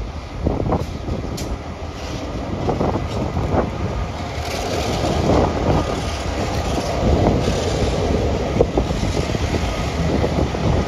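Two vintage diesel-electric streamliner locomotives, 42107 and 42103, passing close by at the head of a passenger train: the engines run with a dense low rumble, and the wheels clatter over the rails. It grows a little louder as the second locomotive draws level.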